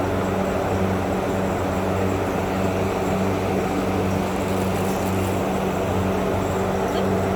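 A steady, unbroken mechanical drone with a low hum, like a motor or engine running at constant speed.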